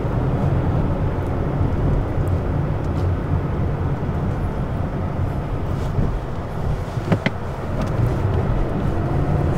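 Mazda CX-9's 2.5-litre turbocharged four-cylinder and road noise heard from inside the cabin as the SUV drives, a steady low drone. A brief click a little after seven seconds in.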